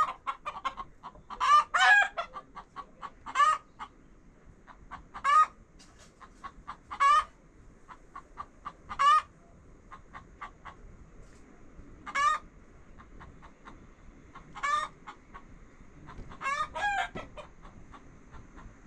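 Domestic chickens clucking: short, sharp calls about every one to two seconds, with fainter clucks in between and a quick pair of calls near the end.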